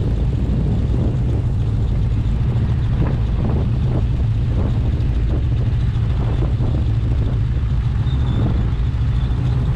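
Snowmobile engine running steadily, a constant low hum.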